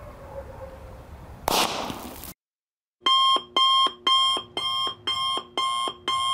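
A firecracker fuse hissing under smoke, then a short loud blast about a second and a half in as the firecracker goes off among water beads. After a moment of silence, electronic alarm beeping starts, about two beeps a second.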